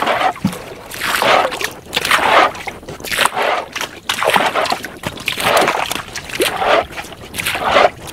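Canoe paddle strokes dipping and pulling through lake water, about one splash a second.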